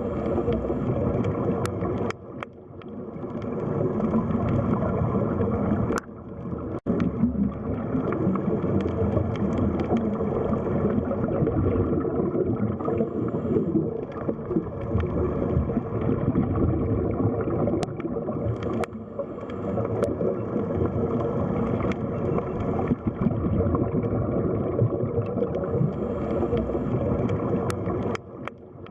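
Underwater sea ambience: a steady, muffled rush and gurgle of water, with brief dips in level about two seconds in, at about six seconds, and near the end.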